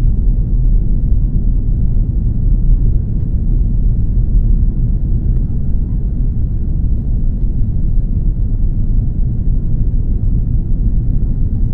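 Cabin noise of an Airbus A330 after landing: a steady low rumble from the engines and the wheels rolling on the ground.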